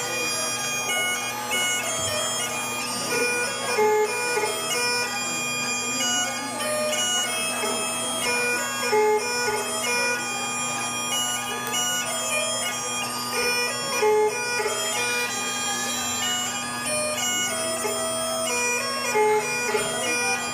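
Highland bagpipes playing a dance tune: the chanter's melody moves from note to note over steady, unchanging drones.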